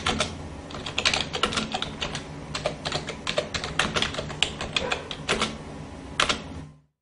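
Typing sound effect: quick, irregular keystroke clicks over a faint low steady hum, cutting off abruptly near the end.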